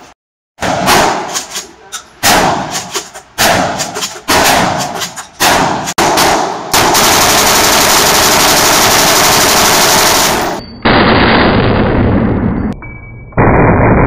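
Gunfire at an indoor range: about a dozen single rifle shots from a carbine, each with a short echo tail. Then about four seconds of unbroken automatic fire from a belt-fed machine gun. Near the end the fire turns low and muffled as the playback is slowed down.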